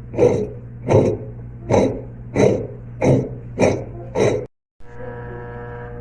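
Electrolux LT15F washing machine's rusted drive motor running on spin with the belt off, making a rhythmic grinding noise: a burst about every three-quarters of a second over a steady hum. The rust comes from water leaking onto the pulley and being thrown onto the motor. Near the end the sound cuts off and switches to a steadier hum.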